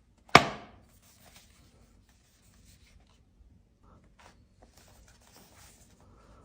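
One sharp click about a third of a second in, followed by soft rubbing and rustling of packaging being handled, with a few small clicks.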